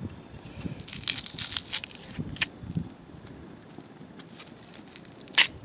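Knife cutting and scraping into a raw potato: irregular small crackles and clicks for a couple of seconds, then a pause and one sharper click near the end.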